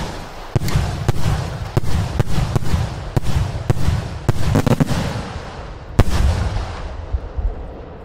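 A rapid series of aerial firework salute bombs exploding, about a dozen sharp bangs at roughly two a second with a low rumble between them. The loudest bang comes about six seconds in, and then the rumble dies away.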